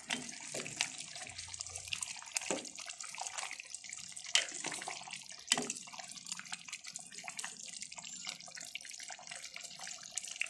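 Thick chicken curry simmering and bubbling in a metal pot while a spoon stirs through it. There is a steady wet hiss, with small clicks and a few sharper knocks of the spoon against the pot.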